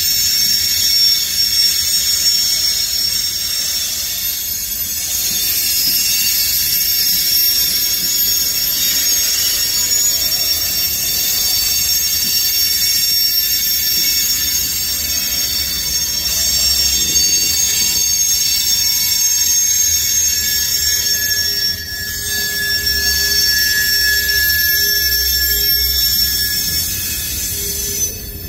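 CSX manifest freight train's cars rolling slowly by with a loud, steady, shrill squeal from the wheels, several high tones at once over a low rumble. The uploader puts the squeal down to brakes left on and dragging.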